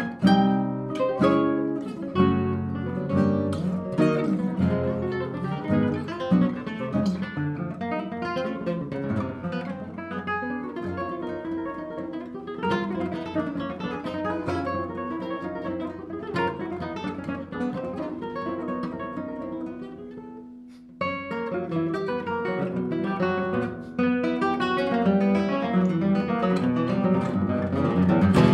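Two nylon-string classical guitars playing a tango duet: quick plucked runs and strummed chords, dropping to a brief lull about twenty seconds in, then coming back louder with dense chords near the end.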